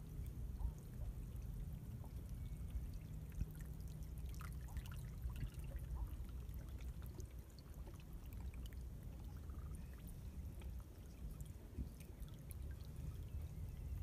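Seawater trickling and gurgling as it flows through a shallow channel between rocks on a rocky shore, over a steady low rumble, with faint small splashy ticks that are busiest around the middle.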